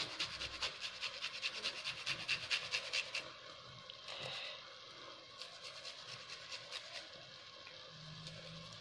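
Garlic cloves being grated on a metal hand grater: quick rasping strokes, several a second, strong for about the first three seconds, then fainter and sparser.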